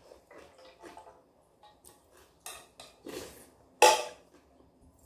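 Metal chopsticks tapping and scraping against a stainless steel pot and plastic food containers during a meal: scattered light clicks, with one sharp clack a little before four seconds in.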